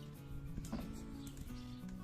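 Background music with held notes changing step by step.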